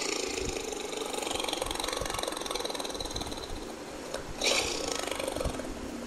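Tiger sound effect: a harsh, hissing snarl running on from the start and easing off over about four seconds, then a second snarl breaking out suddenly about four and a half seconds in.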